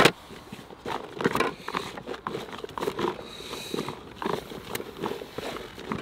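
Halved boilies and bait being stirred with a plastic bait spoon in a collapsible fabric bait bucket: an irregular jumble of small knocks, crunches and rustles. A sharp knock at the very start is the loudest sound.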